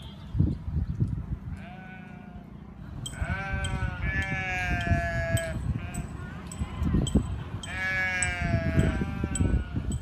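Goats bleating: a faint short bleat about two seconds in, then a long wavering bleat, and a third one near the end.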